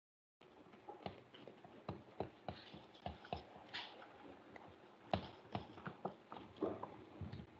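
A cloth duster wiping a whiteboard, making faint, irregular rubbing and knocking sounds against the board.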